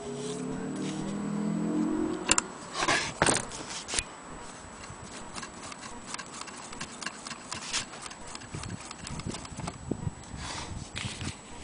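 Antique Willcox & Gibbs sewing machine stitching into a piece of leather, its needle mechanism making a run of light, rhythmic clicks. A low hum comes in the first two seconds, and a few louder knocks come two to four seconds in.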